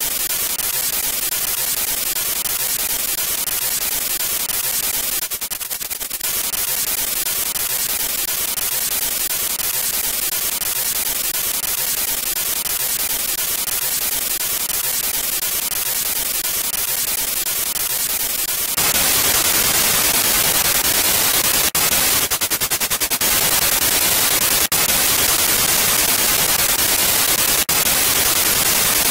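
Spirit box app sweeping through FM frequencies every 100 ms, giving continuous radio static. Two short runs of rapid clicking break through the static, and the static steps up louder and fuller about two-thirds of the way through.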